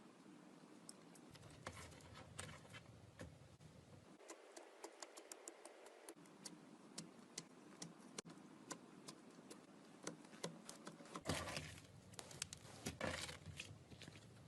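Slime being handled close to the microphone, giving faint, irregular little pops and clicks, with two louder squishy bursts near the end.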